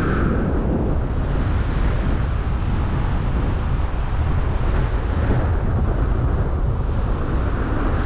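Strong wind rushing and buffeting on a paraglider pilot's camera microphone in flight, steady and loud, heaviest in the low end.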